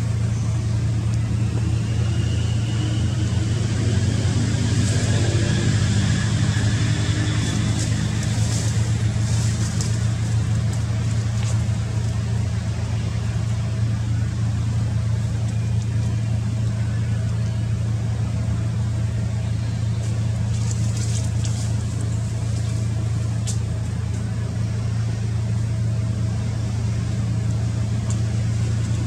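A steady low drone of a running motor throughout, with a few faint high-pitched sounds and ticks over it.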